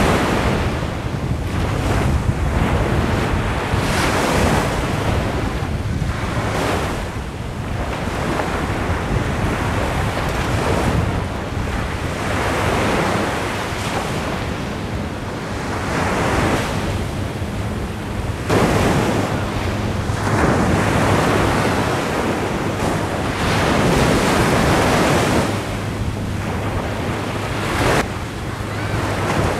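Small waves breaking and washing up a sandy beach, the surf swelling and falling back every few seconds, with wind buffeting the microphone.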